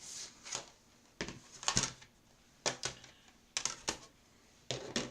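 Handling noises from a metal cutting die being positioned on watercolor paper: short clicks and rustles coming in quick pairs, about one pair a second.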